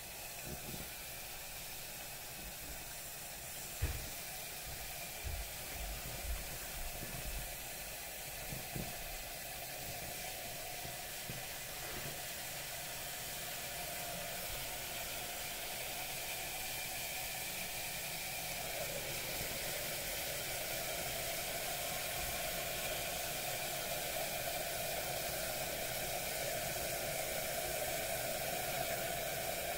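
Liquid nitrogen poured from a flask into a copper LN2 pot and boiling off with a steady hiss and sizzle that grows slowly louder as the pot is cooled toward full pot. A few low knocks in the first several seconds.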